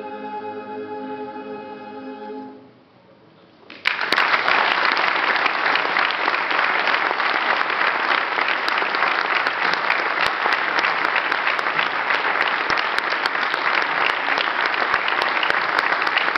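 Male choir singing unaccompanied holds its final chord, which fades out after about two and a half seconds. After a second of quiet, audience applause starts suddenly and goes on steadily.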